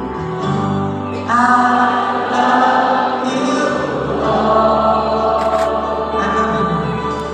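Background music: a choir singing with sustained chords, getting louder about a second in.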